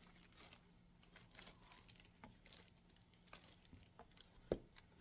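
Faint crinkling and crackling of a thin clear plastic bag as a headphone carrying case is slid out of it, with one dull thump about four and a half seconds in as the case is set down.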